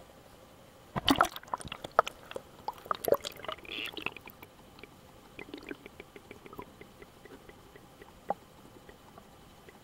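Water splashing and knocking against a waterproof camera as it is dipped below the sea surface, then a run of small clicks and crackles heard underwater, with one more click near the end.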